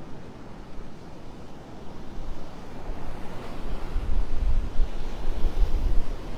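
Wind buffeting the microphone over the wash of surf, the gusts growing stronger about two seconds in.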